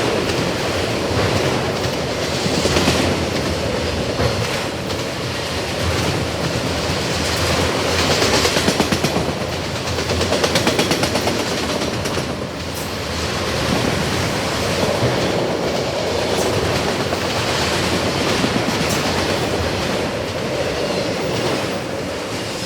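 Long train of empty autorack cars rolling past, steel wheels clacking over the rail joints in a steady loud rumble that starts to tail off near the end.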